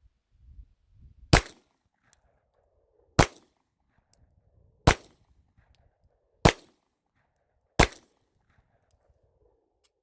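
Five 9mm pistol shots from a Smith & Wesson M&P9 firing Wolf 115-grain steel-cased ammunition, spaced about one and a half to two seconds apart and getting a little quicker toward the end, each followed by a short echo.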